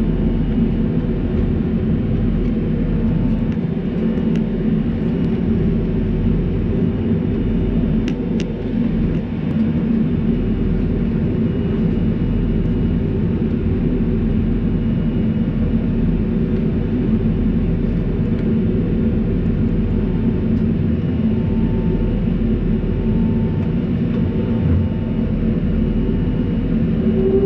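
Steady rumble and hum of a BAe 146-family jet airliner heard from inside the passenger cabin while it stands still, with a couple of faint clicks about a third of the way in.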